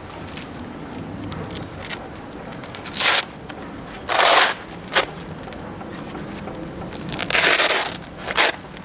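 Hook-and-loop (Velcro) fasteners on a nylon plate carrier being torn apart in five rips, two of them long and three short, amid rustling of the webbing and pouches.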